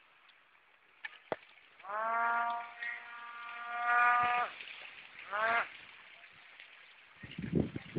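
Homemade RC hovercraft's 7.2 V electric motor and propeller whining as it is throttled up, the pitch rising and then held steady for about two and a half seconds before cutting off, followed by a short rising blip of throttle.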